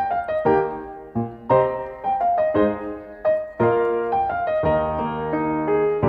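Background piano music: a gentle melody of struck notes, moving into fuller sustained chords about two-thirds of the way through.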